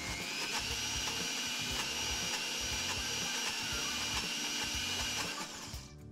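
Countertop blender running on a thick cashew cheese mixture: a steady motor whine that rises as it spins up, holds even, and winds down near the end.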